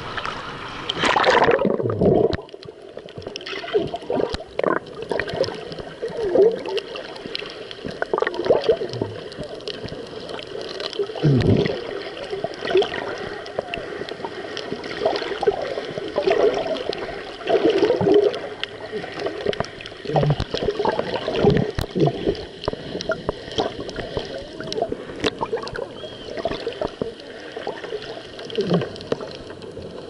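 Water splashing at the surface for about two seconds as the action camera in its waterproof housing goes under, then muffled underwater gurgling and bubbling that swells and fades irregularly, with faint clicks, heard through the housing.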